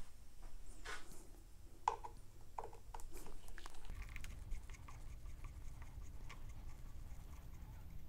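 Faint scattered clicks and scrapes of a hand and a Torx screwdriver working at the plastic throttle-side switch housing of a motorcycle handlebar, as the tool is fitted to the housing screws.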